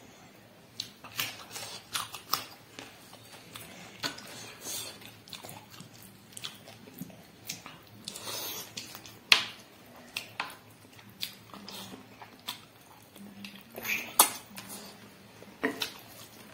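A person chewing and biting food close to the microphone: irregular wet clicks and crunches, with a couple of sharper, louder clicks about nine and fourteen seconds in.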